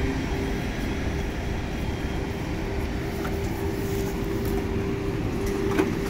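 Rodalies de Catalunya electric commuter train standing at the platform, humming steadily with a constant mid-pitched tone over a low rumble. A short sharp click comes near the end.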